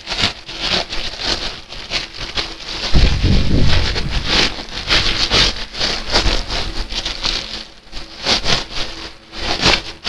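Clear plastic packaging bag crinkling and rustling as a memory-foam lumbar cushion is pulled out of it, with a heavier low rumble of handling about three seconds in.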